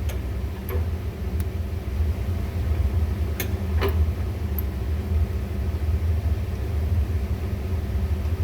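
Steady low rumble and hum of boiler-room machinery, with a few short clicks and knocks near the start and again about three and a half seconds in.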